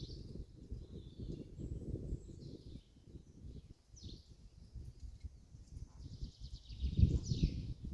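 Small birds singing: short high chirps, then a fast trilled phrase that falls in pitch near the end. Underneath is a low rumbling, knocking noise that is loudest about seven seconds in.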